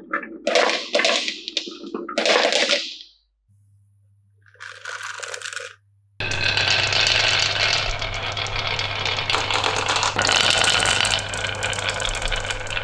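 Marbles clattering along a wooden marble run in several short bursts. After a brief lull about 3 s in, a continuous dense rattling of many marbles starts about 6 s in, with a steady low hum under it.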